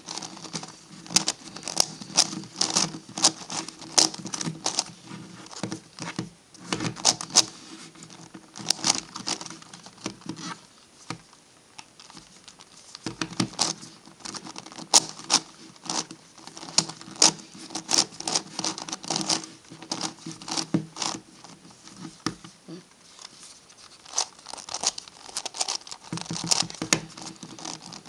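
MF8 Gigaminx, a plastic dodecahedral twisty puzzle, being turned by hand. Its layers clack and click in quick runs, with short pauses between them.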